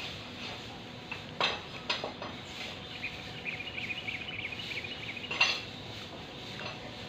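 Farrier's metal tools knocking and clinking against a horse's hoof and shoe as the shoe is fitted: a few sharp metal taps, the loudest about five seconds in, with a run of lighter ticks in between.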